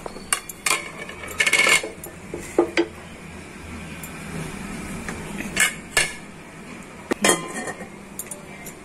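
Wooden spatula stirring thick rice kheer in a stainless steel Amway Queen pot, with a series of sharp knocks and scrapes of wood against the steel. Near the end the pot's steel lid is set on with a clank.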